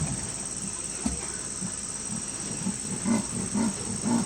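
Sri Lankan leopard giving its rasping sawing call: a run of short low grunts, about two a second, growing louder in the second half. A single brief knock about a second in.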